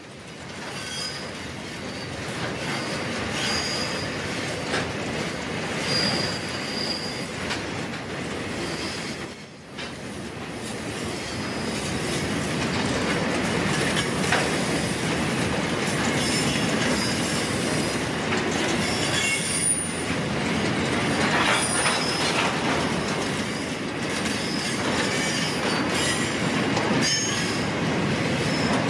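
Container wagons of a freight train rolling past on a curve: a steady rumble of steel wheels on the rails, with short high-pitched wheel squeals that come and go.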